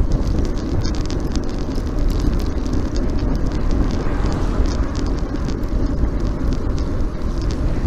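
Wind rumbling over the camera microphone while riding a road bike at speed, with tyre and road noise and scattered short crackles.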